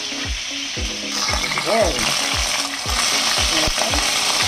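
Chicken breast pieces sizzling in oil in a hot pan, getting louder about a second in. A steady music beat runs underneath.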